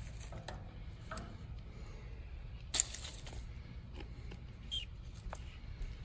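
Scattered light clicks and rustling over a low steady rumble, with one sharper click about three seconds in.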